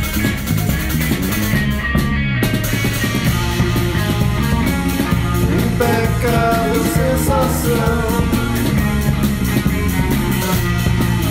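A rock band playing, with drum kit, electric bass and guitar, and men singing over it.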